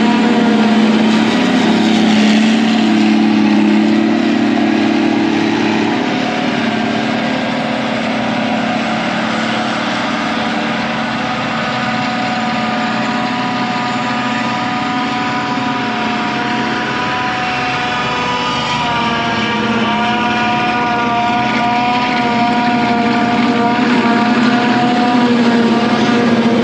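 Heavy diesel farm machinery running steadily, a constant engine drone with a steady whine over it, easing off a little in the middle and coming back up near the end.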